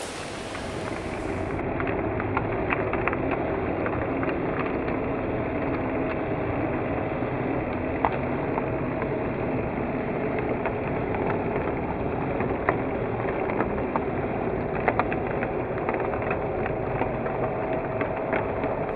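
A Rivarossi HO-scale model steam locomotive running on track: a steady electric motor hum with scattered clicks from the wheels on the rails. From about a second and a half in, the sound is slowed down with the slow-motion picture, so it turns low and dull.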